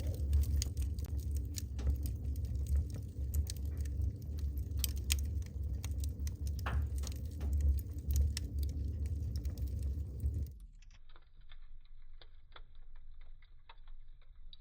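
Wood fire in a fireplace crackling, with many sharp pops and snaps over a low rumble. About ten seconds in the rumble cuts off abruptly and the crackling goes on quieter and duller.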